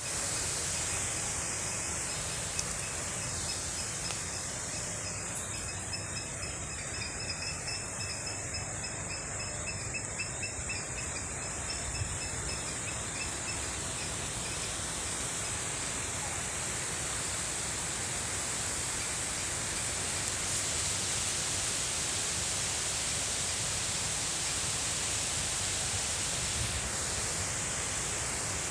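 Steady high-pitched chorus of insects, a continuous shrill hiss, with a fainter pulsing call over it from about four seconds in until about fourteen.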